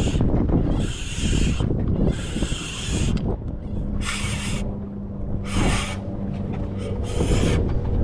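Wind buffeting the microphone on an open boat, a constant low rumble, with a hissing swish about once a second and a faint steady hum for a few seconds in the middle.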